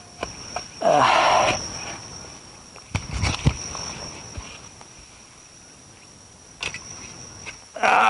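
A shovel digging into grass-covered soil: a loud scraping crunch about a second in, then a few sharp knocks around three seconds in, with quieter scrapes after. A steady high insect drone runs underneath.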